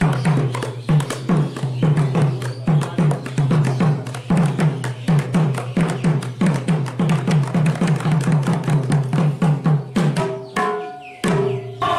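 Two Manipuri pung barrel drums played by hand in a fast, dense rhythm. Each deep bass-head stroke drops in pitch, and sharper strokes on the treble head are laid between them. The drumming thins out about ten seconds in.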